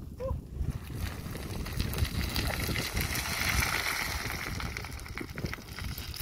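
Loose river stones and gravel scraping, sliding and clattering underfoot as a person scrambles and slides down a cobble slope, loudest about three to four seconds in. A low wind rumble on the microphone runs under it.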